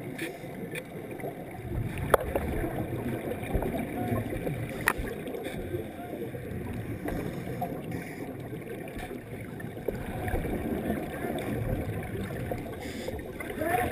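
Muffled underwater sound heard through a dive camera's housing: the low rumble and gurgling of scuba divers' exhaled bubbles, swelling every few seconds, with one sharp knock about two seconds in.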